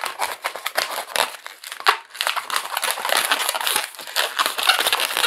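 Long white latex modelling balloon being knotted and twisted by hand into small bubbles: a dense, irregular run of rubbing and crackling from the stretched latex.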